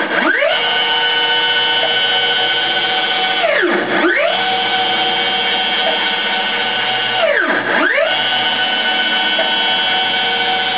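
Stepper motors of a home-made CNC router whining as they drive the carriage back and forth along its ball-screw X axis. The whine holds a steady pitch while the carriage travels, then sweeps down and back up each time the carriage slows, reverses and speeds up again. This happens about every four seconds: at the start, about four seconds in and near eight seconds.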